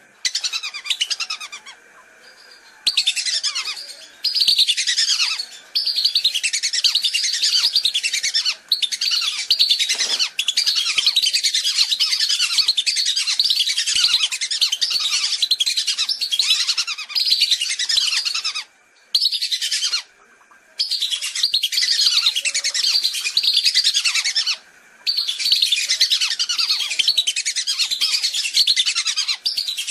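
A flock of whistling ducks calling, many shrill falling whistles overlapping densely, broken by a few short pauses. It is a recorded lure call used to draw whistling ducks in.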